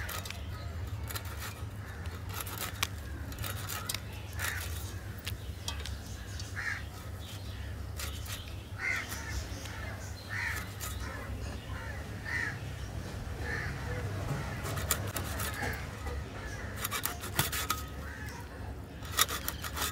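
Crows cawing again and again, a call every second or two, over the scraping and rasping of a ribbon fish being scraped and cut against a fixed upright cutting blade.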